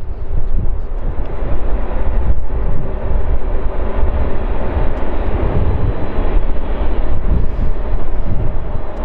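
Continuous loud roar of jet airliner engines, with wind buffeting the microphone.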